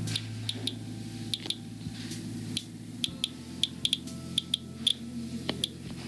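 Inspector Geiger counter giving its audible count chirps at random, irregular intervals, about two to three a second, as it detects radiation from a two-month-old AC air filter. The count rate is well above the house's background.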